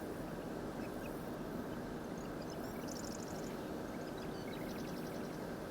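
Steady outdoor background noise, with two brief runs of rapid, high-pitched chirping about three and five seconds in and a few faint scattered chirps between.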